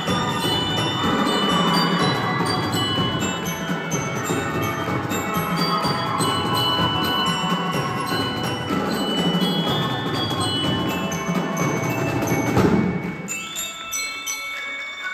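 Marching band playing, with glockenspiels ringing over a steady drum beat. About twelve seconds in, the full sound drops away, leaving thinner playing and one held high note.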